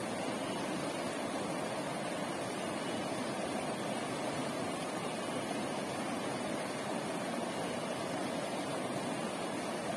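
Steady rushing of a shallow river flowing over a rocky bed, an even noise with no breaks.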